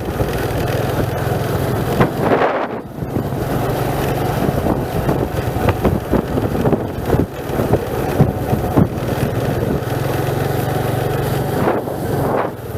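Vehicle engine running with wind buffeting the microphone and scattered knocks and rattles; the engine note eases off briefly about two and a half seconds in and again near the end.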